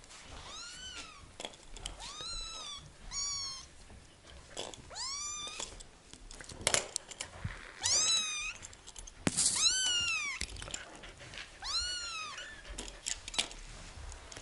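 Young kittens mewing over and over: about a dozen thin, high calls, each rising then falling in pitch, with a couple of short knocks in between.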